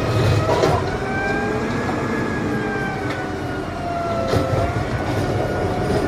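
Heavy vehicle running with a steady low rumble, under a high squealing whine that drifts slowly up and down in pitch.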